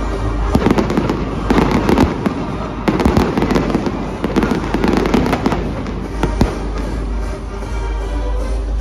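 Fireworks going off: a dense run of sharp crackling pops that thins out near the end, with music playing under it.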